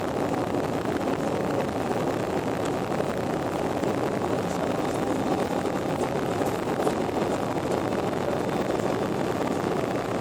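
An airplane's engines and airflow during take-off: a steady rushing noise with no distinct tones, unchanging in level.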